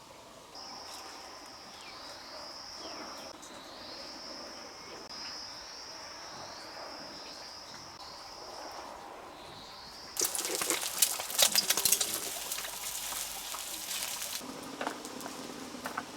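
A steady, high insect-like trill, then about ten seconds in a loud, dense crackling and rustling noise that lasts about four seconds.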